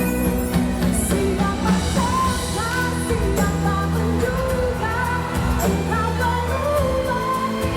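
A pop song: a sung melody over band accompaniment.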